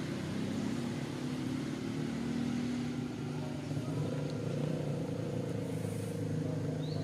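A motor vehicle's engine running steadily, a low hum whose pitch shifts slightly about halfway through.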